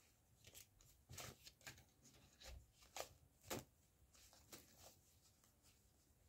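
A deck of large reading cards being handled: a series of faint, irregular soft swishes and taps, with the two loudest about three seconds in.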